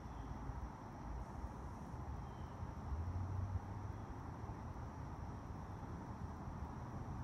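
Summer woodland ambience: a steady high insect drone, over a fluttering low rumble that swells briefly about three seconds in.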